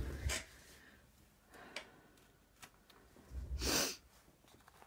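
A person breathing out in two short puffs, one at the start and one about three and a half seconds in, with a few faint clicks between.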